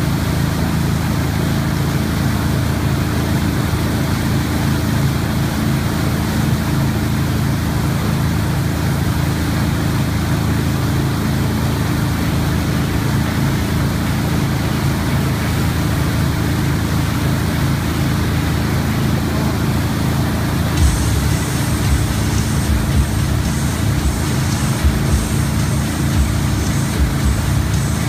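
A Mastercraft X30 ski boat's engine runs steadily under way, with the rush of its churning wake. From about 21 seconds in, rough crackling and low thumps come in over it.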